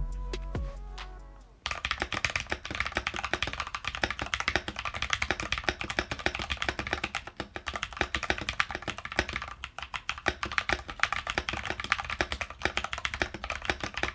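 Fast, continuous typing on a NovelKeys NK65 custom keyboard with Holy Panda tactile switches, a quick rapid stream of keystroke clacks. It starts about a second and a half in, as background music ends.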